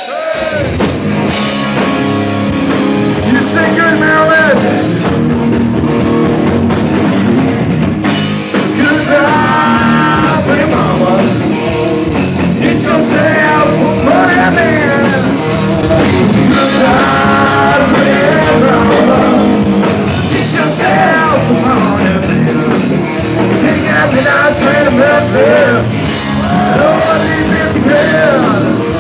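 Live rock band playing loud: electric guitars and a drum kit, with a man singing lead in phrases separated by instrumental stretches.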